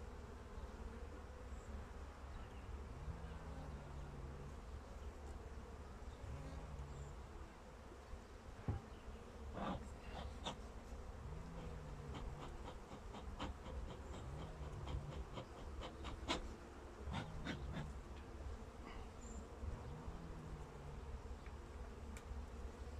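Honeybees buzzing around an open hive: a steady low hum, with single buzzes that rise and fall in pitch every few seconds. A run of light clicks and taps comes in the middle.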